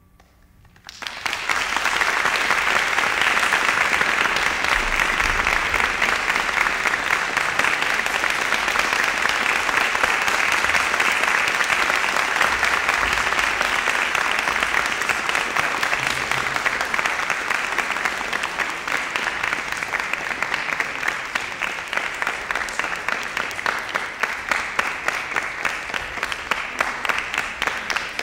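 Audience applauding, breaking out about a second in and going on steadily. Near the end it thins a little, so single claps stand out more.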